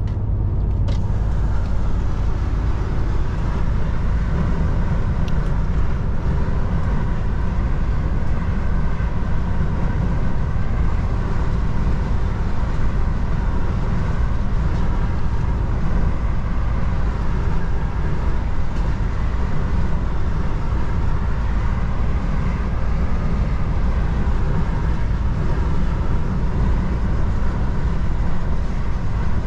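DAF XF truck driving at a steady pace: an even drone of engine, tyres and wind with no change in level.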